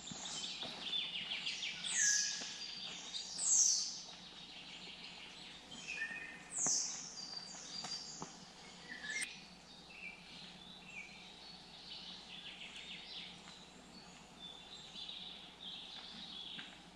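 Several small songbirds singing: repeated high notes that fall in pitch and quick trills, over a faint steady hiss.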